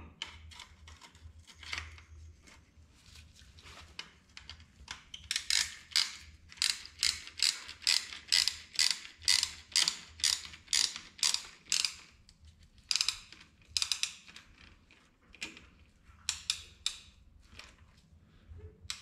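Piston ring compressor being ratcheted tight around a piston's new rings, squeezing them so the piston can slide into the cylinder bore. The ratchet clicks in quick runs of about three clicks a second. The longest run comes in the middle, and there are short bursts and pauses near the end.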